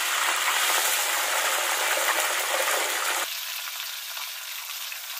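Hot oil sizzling steadily in a clay pot with mustard seeds, fennel and curry leaves, with small onions added to it. About three seconds in it drops abruptly to a quieter, thinner sizzle.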